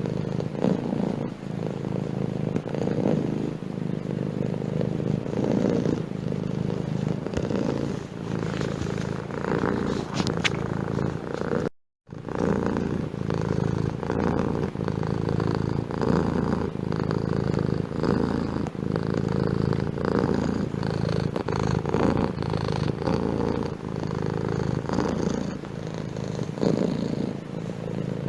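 Domestic cat purring steadily, swelling every second or two. The sound drops out for a moment about twelve seconds in, then resumes.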